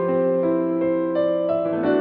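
Background music: a slow keyboard piece of sustained, piano-like notes and chords, changing every half second or so.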